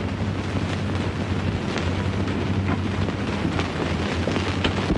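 Steady hiss with a low hum and scattered crackles, the surface noise of a worn 1940s film soundtrack, with no dialogue over it.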